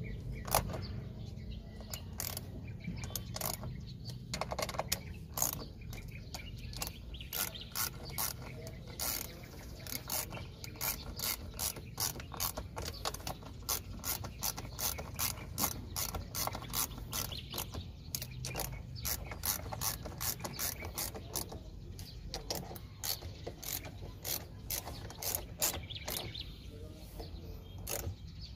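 Hand ratchet wrench clicking in quick runs with short pauses as it turns the bolts on an aircraft wheel brake assembly.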